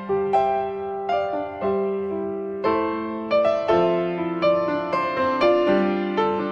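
Background piano music: a slow melody of single notes, each struck and fading, over held lower notes.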